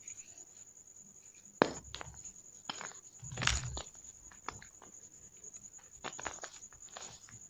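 Plain Jane gym chalk balls being crushed, giving a string of sharp, separate crunches and crackles at uneven intervals, the loudest about three and a half seconds in.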